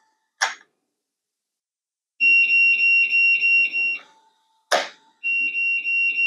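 Solity GSP-2000BK electronic door lock sounding its door-ajar alarm, which means something is keeping the door from closing fully. It gives a high steady tone with a pulsing pattern while its motor whirs as it tries to throw the bolts. This comes in two bursts of about two seconds, with a sharp click between them.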